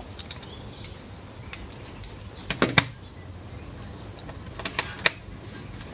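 Small clicks and taps of a phone's parts and a small screwdriver being handled during disassembly: a quick cluster of clicks about two and a half seconds in and another near five seconds.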